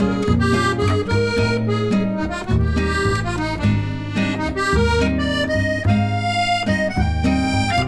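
Instrumental background music: a reedy melody and sustained chords moving note by note over steady bass notes.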